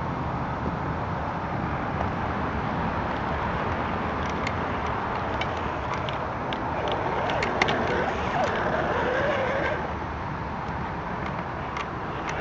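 Electric motor and gearbox of a radio-controlled scale Land Rover crawler running steadily as it drives over leaf-covered dirt, with scattered small clicks and crackles from the tyres on leaves and twigs.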